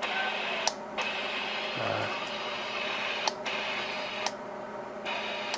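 Elenco auto-scan FM radio kit playing steady static hiss through its small onboard speaker while it scans for a station, with a few sharp clicks and a brief drop in the hiss about four seconds in.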